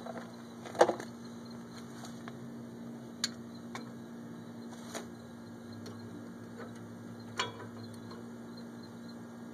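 A few sharp clicks and light knocks as metal brake parts are handled at the caliper, the loudest about a second in, over a steady low hum.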